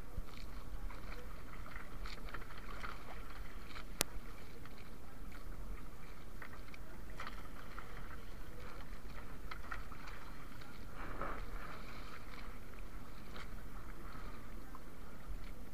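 Sea water lapping and splashing around a small wooden outrigger canoe as a fishing net is hauled in over the side by hand, with scattered small knocks and one sharp click about four seconds in.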